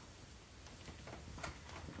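Faint handling of the plastic reverse osmosis membrane housing and its plastic cap wrench, with a light click about one and a half seconds in.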